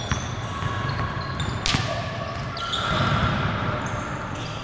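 Sounds of a ball game on a court: a ball bouncing, short high squeaks, and one sharp smack about a second and a half in, with voices in the background.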